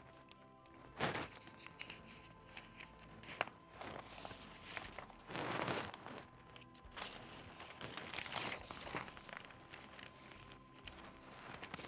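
Faint rustling of paper sheets being handled, a few soft rustles a couple of seconds apart, the longest about six seconds in.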